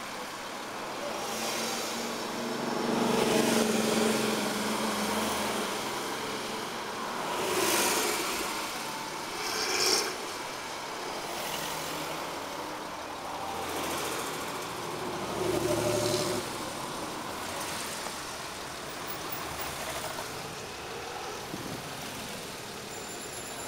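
Cars, Porsche 911s among them, driving past one after another, each engine growing louder and fading as it goes by; the loudest passes come about three, eight, ten and sixteen seconds in.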